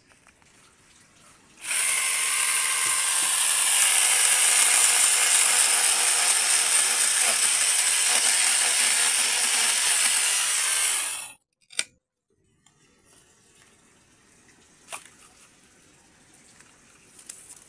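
Kamolee 8-inch brushless mini chainsaw running steadily for about nine and a half seconds, starting a couple of seconds in and cutting off suddenly. A short click follows, and a single sharp tick a few seconds later.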